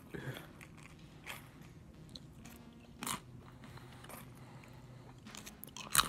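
Wooden chopsticks poking and stirring dry Cheerios in a stainless steel bowl: scattered light clicks and crunches of the cereal, with a sharper click near the end.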